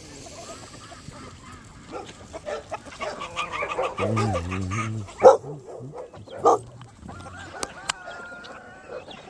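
A flock of farm poultry calling over one another, with a wavering call about four seconds in and two loud, sharp single calls shortly after.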